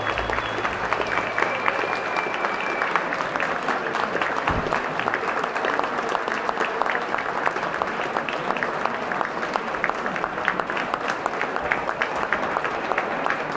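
Audience applauding: many hands clapping steadily, with a few voices among them, as the last of the music dies away in the first couple of seconds.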